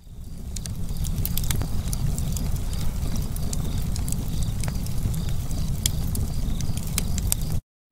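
Wood log fire crackling: a steady low rumble of flames with frequent sharp pops and snaps. It fades in at the start and cuts off suddenly near the end.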